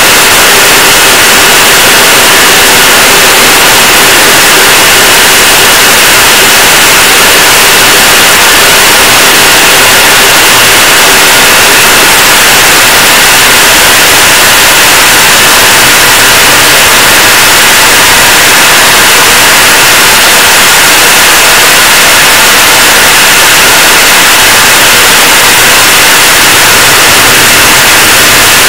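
Loud, steady rushing noise of the jet engine and airflow inside the cockpit of an L-39 Albatros jet trainer in flight, its Ivchenko AI-25TL turbofan and the slipstream blending into an even hiss. It does not change through the loop.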